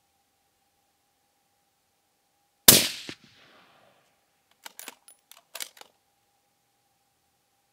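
A single loud shot from a Desert Tech SRS-A1 Covert bolt-action bullpup rifle in 6.5 Creedmoor, with a short echoing tail. About two seconds later comes a quick run of sharp mechanical clicks as the bolt is worked.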